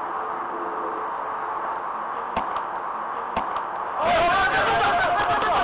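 Steady outdoor background hiss with two light knocks, then about four seconds in, ballplayers' voices start shouting loudly from the field.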